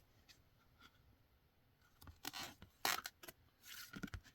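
A book page being turned: a few short paper rustles and scrapes in the second half, after about two seconds of near quiet.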